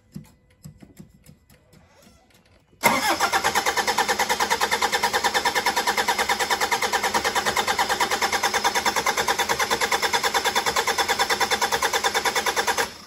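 Toyota 1KD-FTV four-cylinder turbo diesel turned over on the starter motor for about ten seconds with an even, steady pulsing, not catching, then cut off suddenly. It fails to fire after a change of two fuel filters, a sign of air still in the fuel system that needs more priming.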